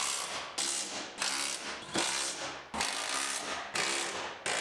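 A ratchet wrench tightening the sunroof assembly bolts. It clicks in about seven repeated strokes of roughly half a second each, coming at an even pace.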